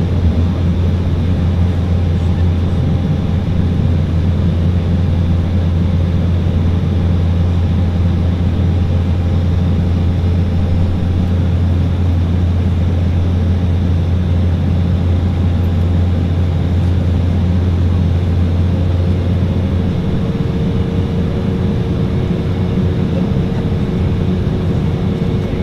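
Cabin noise of an Embraer E190 airliner climbing after takeoff: the steady drone of its GE CF34 turbofans and the rush of air past the fuselage. About three-quarters of the way through, the deep hum eases and a higher steady hum comes through.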